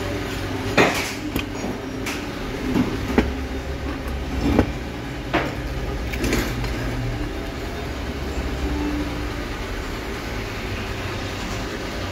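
Steel parts of a homemade belt-sander attachment being handled: a string of knocks and clinks of metal, about eight over the first six seconds, over a steady low hum.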